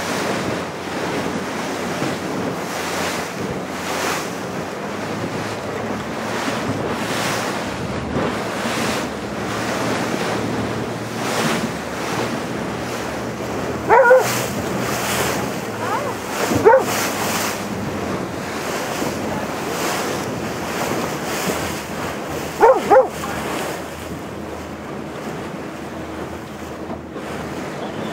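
Wind rushing over the microphone and choppy sea slapping and spraying against an inflatable zodiac boat under way. Three short, loud calls with a clear pitch stand out over it, two fairly close together about halfway through and one more later on.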